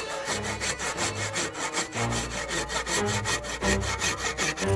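TOTAL THT55166D 400 mm hand saw cutting through a small log, the teeth biting into the wood in a steady rhythm of back-and-forth strokes.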